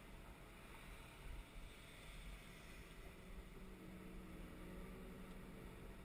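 Excavator's diesel engine running steadily, heard faintly from inside the operator's cab as a low hum.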